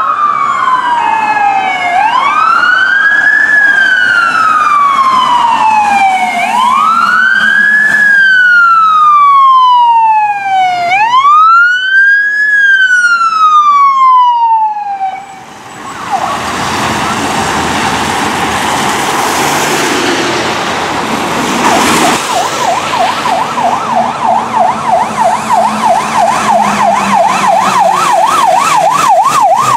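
Fire engine sirens on an emergency run: a wail siren rising quickly and falling slowly, about every four and a half seconds, through the first half. After a break, a heavy fire truck passes close with its tyres hissing on the wet road, and about two-thirds of the way in a fast yelp siren starts and runs on.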